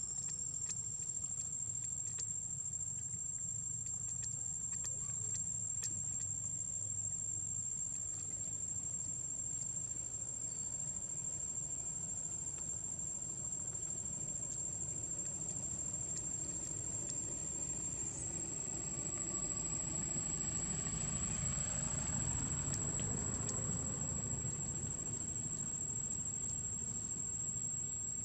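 Steady high-pitched insect drone over a low rumble; the rumble swells for several seconds past the middle, then settles.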